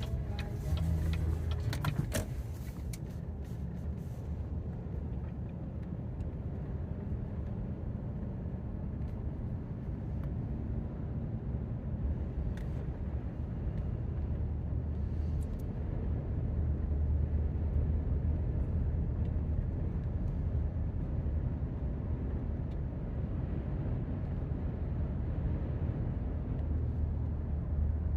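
Vehicle engine and road noise heard from inside the cab as it drives along, a steady low rumble, with a few knocks in the first two seconds.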